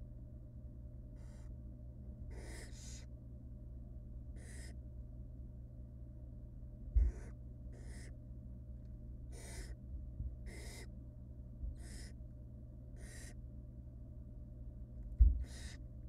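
Barn owl nestlings giving their hissing, rasping begging calls while being fed, about a dozen short hisses coming unevenly, roughly one a second. Two dull thumps, one about halfway through and one near the end, stand out as the loudest sounds.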